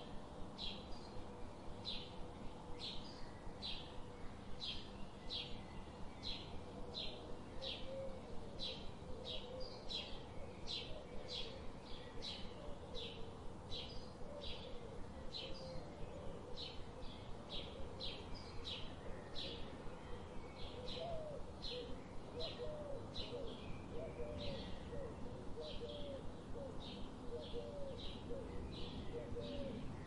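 Birds calling: a short, high note repeated steadily about twice a second, over a steady background hiss. A lower, curling call joins in and repeats from about a quarter of the way in.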